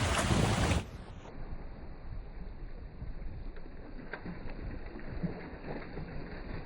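A loud burst of rushing noise that cuts off about a second in, then a steady low rumble of wind and a boat running on open water.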